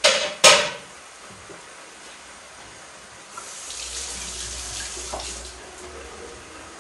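Two loud, short bursts of noise at the start, then a kitchen tap running for about two seconds.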